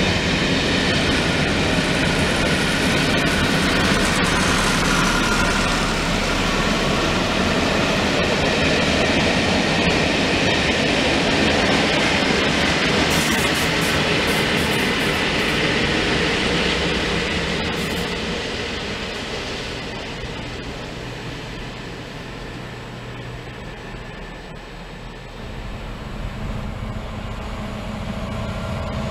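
Passenger train of Pullman coaches passing at speed, its wheels clattering over the rails, with a West Coast Railways class 57 diesel locomotive on the rear going by about 14 seconds in. The train sound fades away from about 17 seconds in. Near the end another diesel locomotive can be heard approaching, getting louder.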